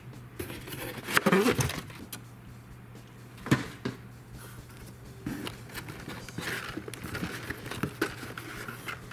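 Blister-carded Hot Wheels diecast cars being handled: plastic blisters and card backs crinkling and clicking as packages are picked up and set down, with a steady low hum underneath.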